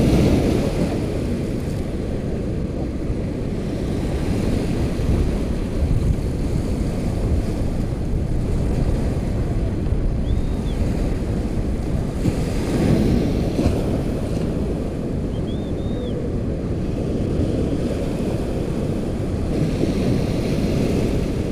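Small waves breaking and washing up the sand at the water's edge, with wind buffeting the microphone. The wash swells at the start, again about 13 seconds in and near the end.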